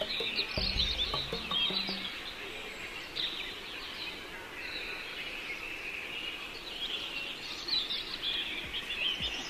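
Many birds chirping together in a dense chorus of short, overlapping calls, with a few low notes in the first two seconds.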